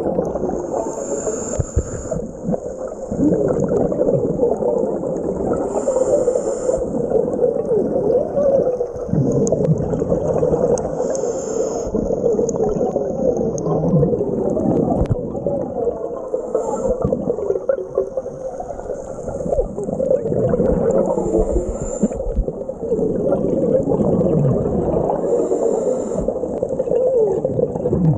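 Muffled underwater noise of a scuba dive recorded through a camera housing, with the gurgle of regulator exhaust bubbles swelling every four to five seconds with the divers' breathing.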